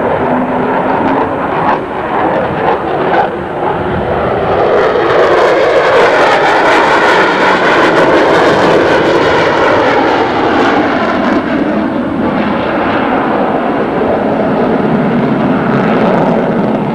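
Jet noise from an F-14 Tomcat's twin engines during a low display pass, swelling about five seconds in and staying loud.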